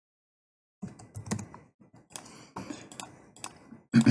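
Computer keyboard typing: a short run of keystrokes starting about a second in, with a louder click near the end.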